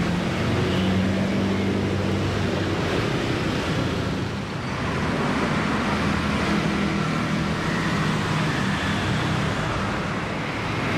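Diesel bus engine running steadily with a low hum, mixed with road noise; the sound dips briefly about four and a half seconds in, then carries on.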